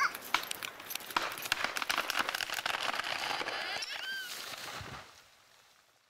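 A tall pine falling: a run of sharp cracks and snaps with a swelling rush as it comes down through the branches of neighbouring trees. A short high call sounds about four seconds in, and the sound dies away about five seconds in.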